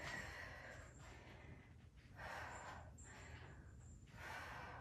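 A woman's faint, hard breathing, three breathy exhales about two seconds apart, from the exertion of dumbbell goblet squats.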